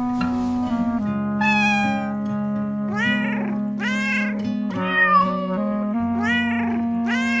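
A cat meowing over and over, about seven meows, some rising then falling in pitch and some sliding down, over background music with steady held notes.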